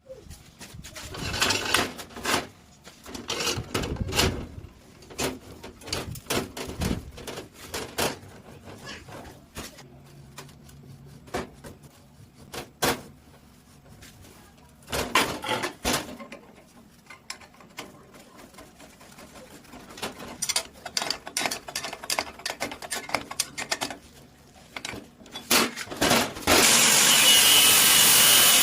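Workshop metal-working sounds: irregular knocks, clanks and short scraping strokes. Near the end a power tool starts cutting with a loud, steady, even noise.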